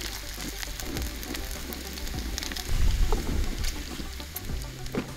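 Bacon sizzling and crackling in its own grease on a hot flat-top griddle, a steady hiss dotted with small pops. A low rumble swells briefly about three seconds in.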